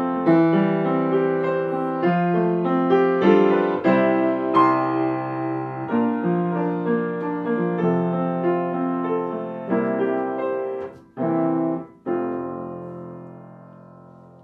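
Piano music playing, with two brief breaks about eleven and twelve seconds in and a fade toward the end.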